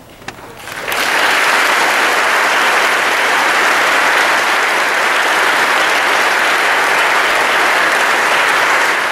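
Large audience applauding loudly. A few scattered claps swell to full applause about a second in, and it holds steady from there.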